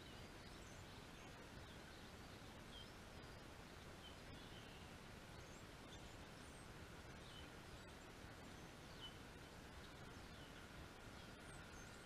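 Near-silent outdoor background noise with faint, scattered short high-pitched bird chirps throughout.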